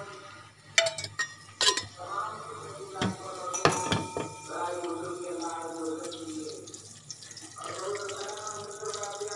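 Metal kitchenware clinking: a steel spoon knocked against a kadai on a gas stove, three sharp clinks, the loudest near four seconds ringing briefly. Voices carry on in the background.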